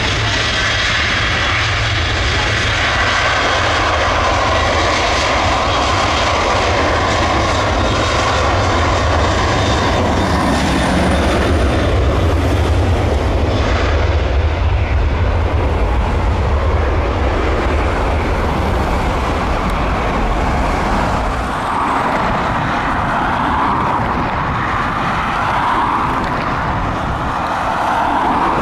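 Airliner's engines running loudly as it moves along the runway, a deep rumble under a broad rush that eases off about three-quarters of the way through.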